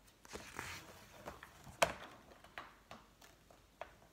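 Paper rustling and small knocks of a hardback book being handled and laid open on a table, with a dozen or so soft clicks, the sharpest a little under two seconds in.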